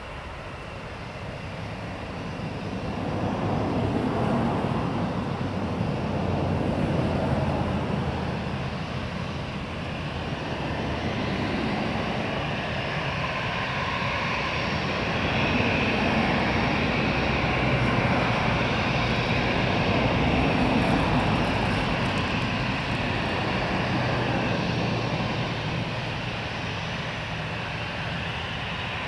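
An Airbus A320's CFM56-5 turbofan engines run at low taxi power as the jet turns onto the runway. The steady whine and rumble swell a few seconds in, then rise and fall gently.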